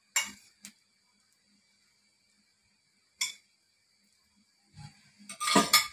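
A metal spoon clinking against cookware: a few short separate clinks, then a longer, louder clatter near the end.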